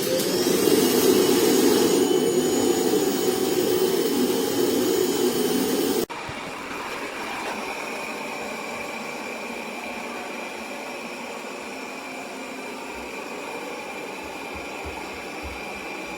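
Robot vacuum cleaner's suction motor spinning up with a rising whine and running loudly. About six seconds in it drops abruptly to a quieter steady whir with a high whine.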